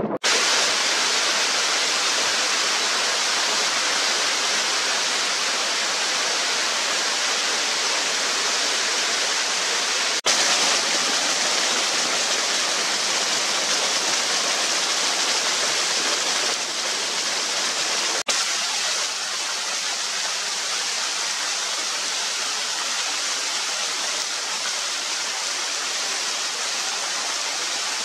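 Steady rushing of a small waterfall, water spilling down an ice-coated cascade. The sound breaks off for an instant twice, where the recording is cut.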